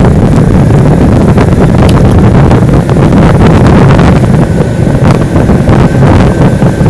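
Loud wind buffeting on the microphone from riding at speed, a heavy, continuous rumble. A faint steady high tone comes in about two-thirds of the way through.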